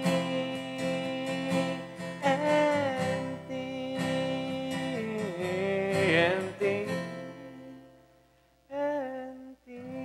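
Acoustic guitar strumming the closing chords of a ballad, with a voice singing long wordless notes over it. The music dies away about eight seconds in, and one last chord rings out near the end.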